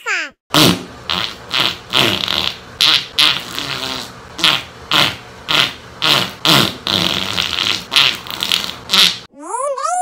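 A fast string of cartoon fart sound effects, buzzy bursts about two a second, one after another. Near the end it breaks off into a wavering, rising scream sound effect.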